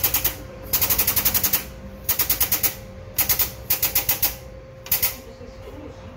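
Power-driven hammering on steel, about ten sharp metal blows a second in short bursts, with a pause between bursts, as a bent steel rod is shaped into a tie-down ring in a vise. The blows stop about five seconds in.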